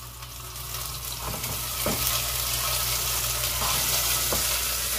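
Food sizzling in hot oil in a pan: a steady hiss that swells over the first couple of seconds, then holds.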